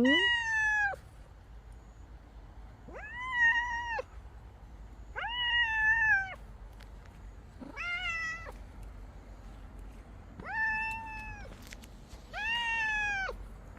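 A cat meowing over and over: six drawn-out meows of about a second each, spaced roughly two seconds apart.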